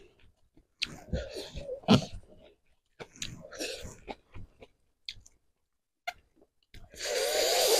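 Close-miked chewing of food, with wet mouth clicks in two runs and a short pause between them. Near the end there is a loud, breathy exhale.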